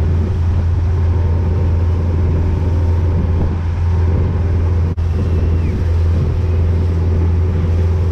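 Motorboat engine running steadily at speed while towing a tube: a strong low drone with wind and water noise over it, broken by a momentary dropout about five seconds in.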